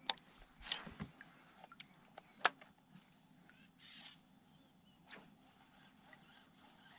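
Quiet open-air background with a few faint, scattered clicks and taps, the sharpest about two and a half seconds in.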